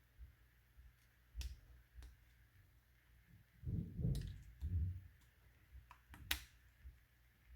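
Handling noise from the camera and its plastic accessories: a few sharp clicks, the loudest a little after six seconds in, and a cluster of dull low knocks around the middle.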